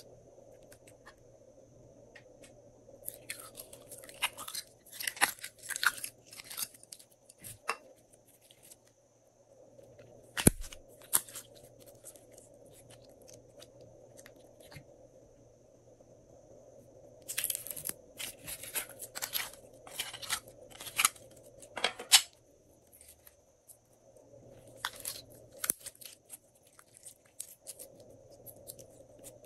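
Glossy slime being squeezed, poked and stretched by hand, giving clusters of sticky crackling and popping clicks with quiet pauses between. There is one sharper, louder snap about ten seconds in.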